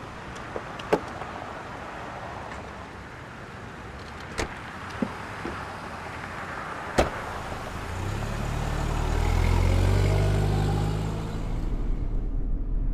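A few clicks and knocks of a van's door and fittings, the sharpest about seven seconds in. Then the van's engine pulls away, rising in pitch. Near the end it settles into a muffled low drone heard from inside the cabin.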